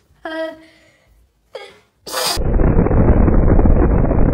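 Explosion sound effect: a sudden blast about two seconds in, followed by a loud, dense rumble that cuts off abruptly. Before it come a few short, pitched sounds.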